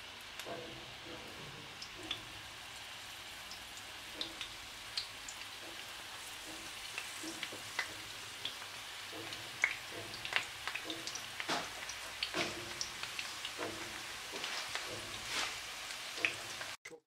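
Rolled filo (yufka) cigar pastries frying in hot vegetable oil in a nonstick pan: a steady sizzle with scattered crackling pops that grow more frequent as more rolls go in. The sound cuts off suddenly near the end.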